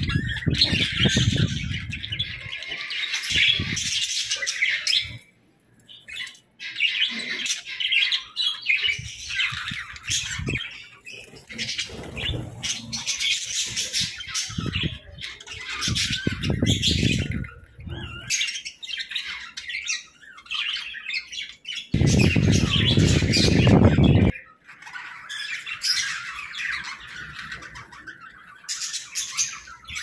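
A flock of budgerigars chattering and chirping, with squawks among the warbling. Several bursts of low rumble break in, the longest and loudest about two-thirds of the way through.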